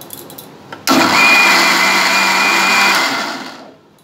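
Bajaj electric mixer grinder blending a yogurt mixture for lassi: a few light clicks as the jar is handled, then about a second in the motor starts suddenly and runs with a steady high whine for about two seconds before it is switched off and spins down.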